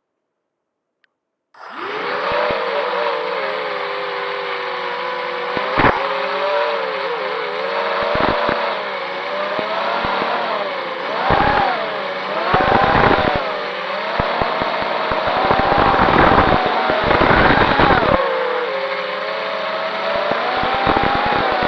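FPV racing drone's brushless motors and propellers buzzing, starting suddenly about a second and a half in, the pitch rising and falling with throttle, with repeated bursts of low rumbling.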